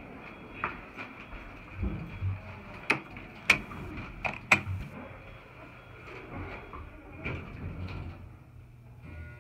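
Kone elevator doors sliding shut. There are low thumps about two seconds in, then a run of sharp clicks over the next two seconds, over a steady high hum in the cab.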